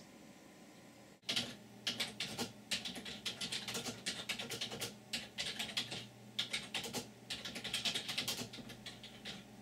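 Fast typing on a computer keyboard: a dense, uneven run of key clicks that starts about a second in, with short pauses between bursts.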